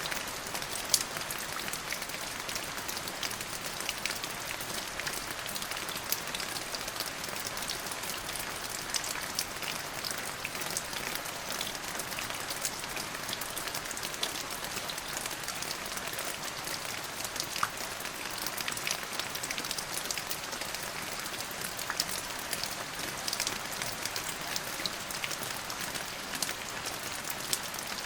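Steady rain falling, a constant hiss with many close drop hits pattering on a surface; no thunder is heard.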